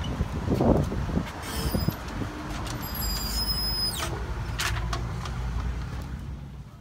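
Steady low rumble of street traffic, with rustling and knocks from the phone brushing against a shirt. The rumble drops away near the end on stepping inside the shop.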